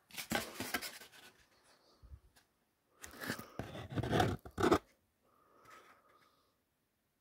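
Cardboard perfume packaging being handled and folded, giving scraping, rustling noises in two spells: about a second at the start, and a longer one of nearly two seconds about three seconds in.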